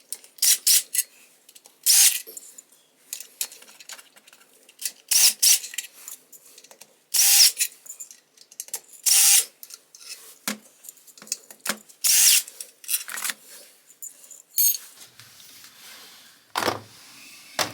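Short, irregular bursts of metallic clattering and clicking from hand tools and small engine parts being handled during motorcycle engine work, about one burst every second or two.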